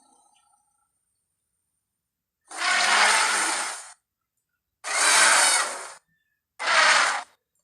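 Woolly mammoth sound effect: three harsh, unpitched bursts of noise, the first starting about two and a half seconds in, each about a second long and the third shorter.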